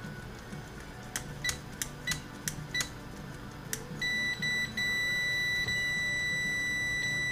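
Continuity-tester beeper across the on/off switch of a vintage radio's switched volume control. It chirps in short broken blips as the shaft is wiggled, then from about four seconds in settles into a steady high beep, with a brief dropout soon after. The switch contact is making only intermittent connection, which the repairer hopes is just a dirty contact.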